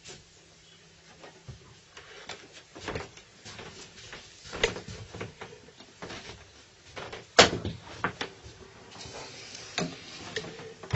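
Irregular knocks, clicks and clatter of equipment being handled and repositioned on a workbench, the sharpest knock about seven seconds in.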